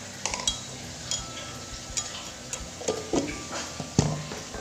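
Scattered light clinks and knocks of kitchenware being handled, with a sharp knock about four seconds in as the green plastic lid is set onto the glass blender jar. The blender motor is not running.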